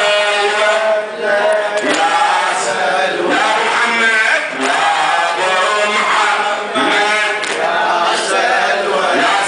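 Men chanting a Shia mourning lament (latmiya) together, voices sung in a rising and falling line, with sharp chest-beating strikes about once a second in time with the chant.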